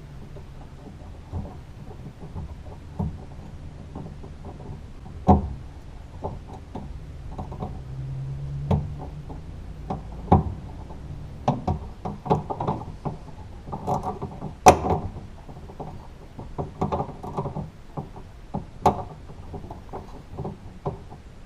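Hand-tool work inside a car door's sheet-metal shell: irregular clicks and knocks of tools and small metal parts, with several sharper knocks, the loudest about 15 seconds in.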